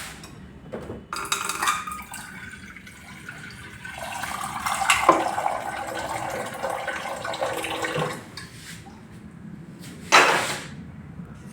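Water pouring into a vessel, running for about four seconds from about four seconds in, with a shorter splash of sound about a second in and a brief sharp burst near the end.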